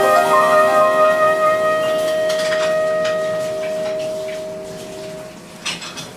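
Final held note of a slow jazz ballad: a clarinet sustains one long note over a ringing piano chord, the whole band fading out about five seconds in. The first few claps of applause start near the end.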